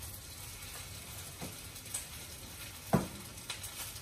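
Cooked glutinous rice sizzling in hot coconut oil in a frying pan as it is stirred, with a steady hiss. A utensil knocks against the pan twice, lightly about a second and a half in and louder about three seconds in.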